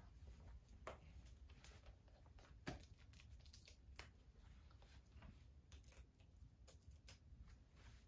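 Faint handling noise: soft clicks and rustles as a 4K Blu-ray case and its packaging are unwrapped and opened, over quiet room tone.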